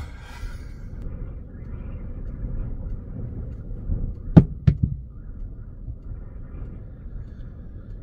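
High wind buffeting a parked van, heard from inside the cabin as a steady low rumble. Two sharp knocks come close together about four and a half seconds in.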